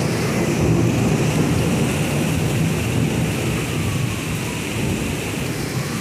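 Heavy rain and strong wind of a severe thunderstorm, with gusts buffeting the microphone in a steady, loud rush.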